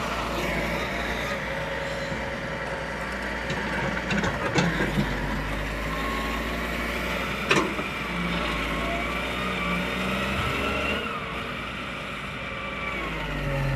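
Heavy vehicle engine running steadily, with a couple of sharp knocks about four and a half and seven and a half seconds in.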